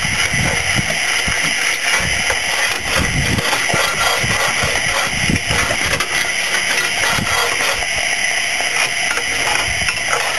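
Fire iron scraping and knocking against the grate and ashpan of a 7¼-inch gauge steam locomotive as its fire is dropped at the end of the day, in irregular strokes over a steady hiss.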